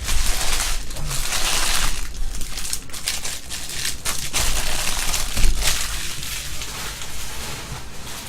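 Trading card box packaging being crushed and crumpled, with a dense crinkling and crackling of plastic wrap and cardboard. It is loudest early on and again about five seconds in, and dies down near the end.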